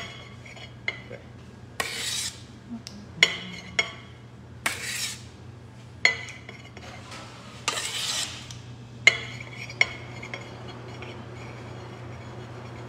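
A metal cake spatula clinks and scrapes against a steel bowl and an aluminium cake turntable while whipped cream is spread: a handful of sharp metallic ticks and three short scrapes over a steady low hum.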